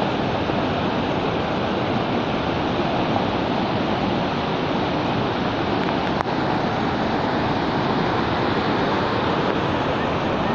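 Brown floodwater rushing across a submerged road and pouring off its edge in a continuous cascade, a steady, even rush of water.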